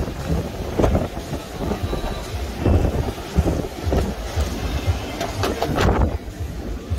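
Wind buffeting a phone's microphone: an uneven low rumble that surges and drops, with a few short knocks from the phone being handled.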